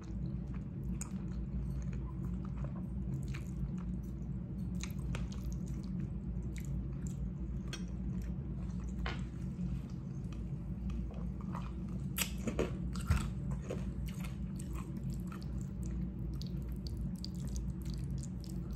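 Close-up chewing of spaghetti with meat sauce: irregular wet smacks and mouth clicks, with a louder cluster about twelve seconds in, over a steady low hum.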